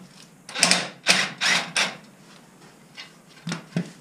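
Socket ratchet backing off the nut on a tie rod end's ball stud, clicking in short rasping runs: four quick strokes in the first two seconds, then a few more near the end.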